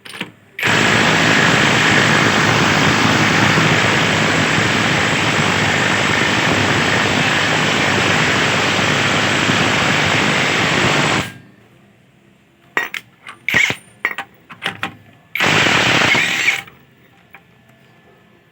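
Impact wrench hammering in one continuous run of about ten seconds, then several short trigger bursts and a final burst of about a second.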